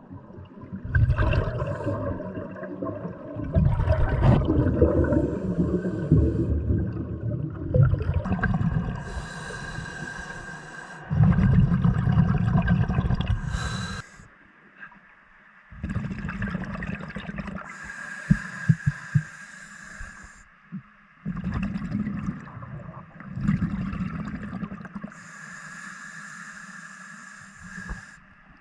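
Scuba diver breathing through a regulator underwater: a hissing inhale followed by a loud, low bubbling exhale, repeating every several seconds.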